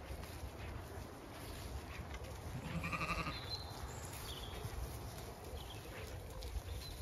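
A Zwartbles sheep bleats once, about three seconds in, over a low steady rumble.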